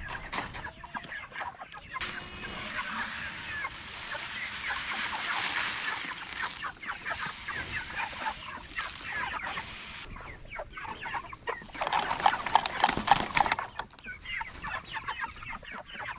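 Chicken feed poured from a plastic bucket into a PVC-pipe trough feeder: a steady hiss of grain running into the pipe for several seconds, which stops suddenly, then a second shorter pour. Chickens cluck throughout.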